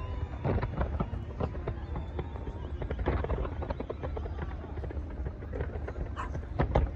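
Fireworks going off in an irregular series of pops and crackling bangs over a steady low rumble.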